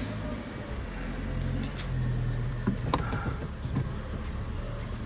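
Car engine running steadily at low revs, with a couple of light clicks about three seconds in.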